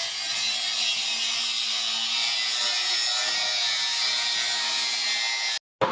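Electric grinder running steadily against the aluminum sprinkler pipe with a high hiss and a low motor hum, stopping abruptly near the end.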